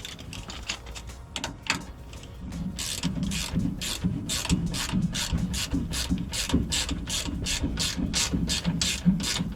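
Hand ratchet wrench clicking as it is worked on a shock absorber mounting bolt, to undo a shock that has not been off in six or seven years. The clicks are sparse and irregular at first. From about two and a half seconds in they settle into a steady rhythm of about four a second.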